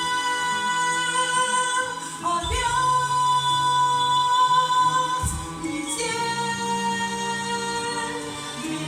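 Women's voices singing a slow song in long held notes, moving to new notes about two seconds in and again about six seconds in, over low sustained notes beneath.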